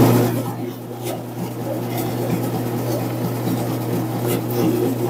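Electric dough-kneading machine running, its motor giving a steady low hum while it works the pasta dough, with light irregular knocks from the dough and machine.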